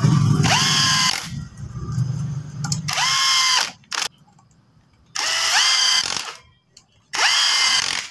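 Cordless drill running in the four clutch-spring bolts of a Yamaha Sniper 150's clutch pressure plate. There are four short whirring runs about two seconds apart, each rising quickly in pitch and then holding steady for about a second before it stops.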